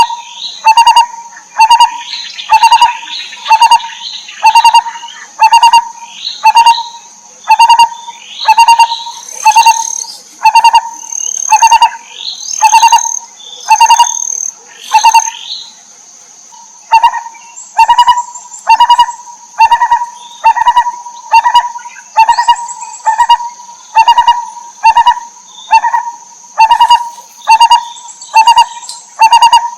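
Barbet calling: one loud, low note repeated steadily about once a second, with a short pause about halfway through. Softer chirps overlie the first half, and a steady high drone runs underneath.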